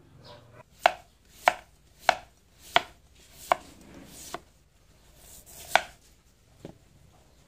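Chef's knife slicing a green mango on a wooden cutting board, each stroke ending in a sharp knock of the blade on the board. About eight knocks at a steady pace, roughly one every two-thirds of a second, with a longer gap past the middle.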